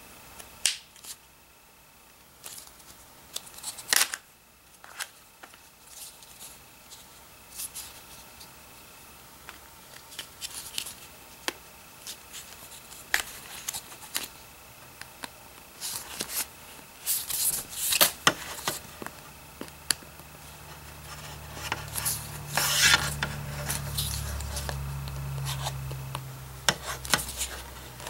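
Hard plastic toy car track pieces and connectors being handled and pushed together: scattered clicks, snaps and rubbing of plastic, with a low hum for several seconds in the second half.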